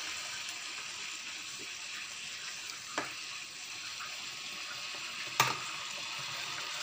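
Tomato curry gravy simmering in a kadai on a gas stove: a steady bubbling sizzle, with two short knocks about three seconds and five and a half seconds in.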